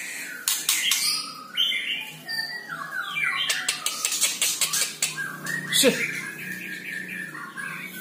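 White-rumped shama (murai batu) singing a varied string of whistled and rasping phrases, with a fast run of clicking notes near the middle and a loud, quick rising note about six seconds in.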